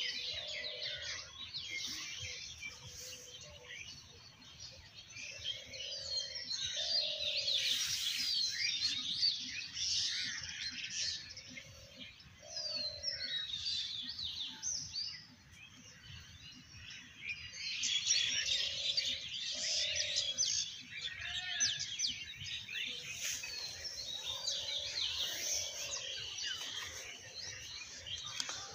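Many small birds chirping and twittering together in waves that swell and fade, with a lower, short call repeated every second or two underneath.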